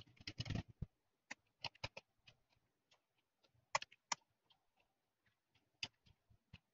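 Computer keyboard typing: a quick flurry of keystrokes about half a second in, then scattered single key clicks at uneven intervals.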